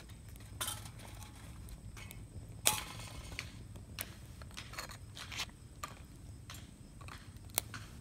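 Metal tongs clinking and scraping on a tin-can crucible as it is lifted out of a wood-fired rocket furnace. Scattered light clicks, with one louder knock a little under three seconds in.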